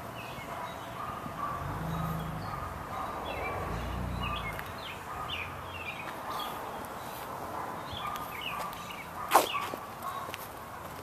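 Birds chirping in short, repeated calls, over a low rumble for a few seconds. About nine seconds in there is one sudden, loud, sharp sound whose tail falls in pitch.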